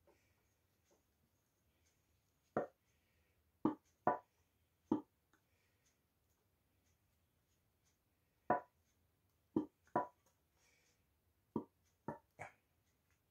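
About ten short, sharp knocks and clacks in irregular groups as an old metal oil can is handled and worked on by hand.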